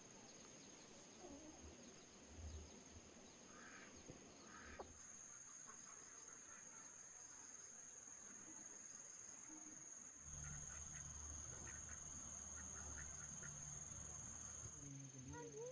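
Faint, quiet outdoor ambience: insects keep up one steady high-pitched drone, and a low hum comes in about ten seconds in.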